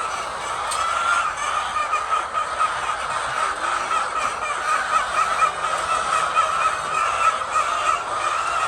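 Continuous din of a large flock of laying hens, many birds clucking and calling at once.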